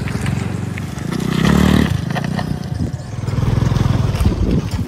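A motor vehicle's engine running, rising in pitch and level about a second and a half in and swelling again near the end.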